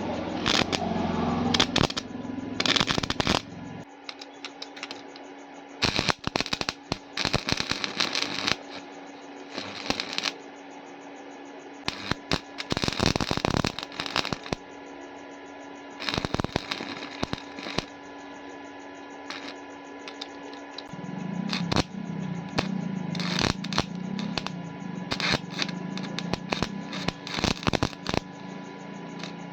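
Electric arc welding on iron: crackling and sputtering in bursts that start and stop every second or so, over a steady hum.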